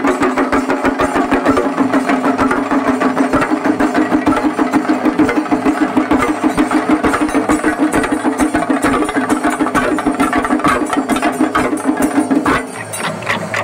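Festival percussion music: a fast, even drumbeat over a steady held droning tone. Both stop abruptly near the end, leaving quieter, looser sounds.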